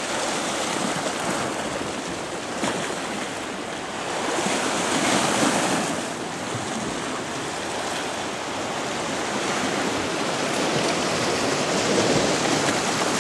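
Sea waves washing against a rocky shoreline: a steady rush of surf that swells louder about four to six seconds in and again near the end.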